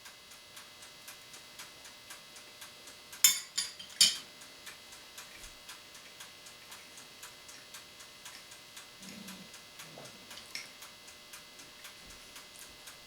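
Steady mechanical ticking, about three ticks a second, with a few sharp clinks of tableware a little over three seconds in and again about a second later.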